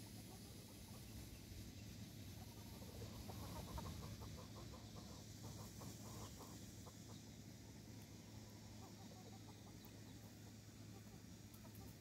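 Faint clucking of gamefowl chickens in quick runs of short notes, over a steady low hum.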